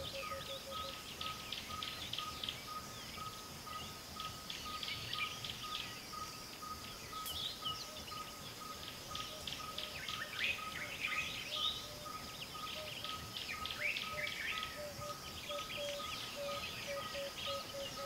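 Natural chorus of many small birds chirping and trilling, thickest in the middle, over a steady series of evenly repeated piping notes about three a second; a second, lower series of repeated notes is heard briefly at the start and again near the end.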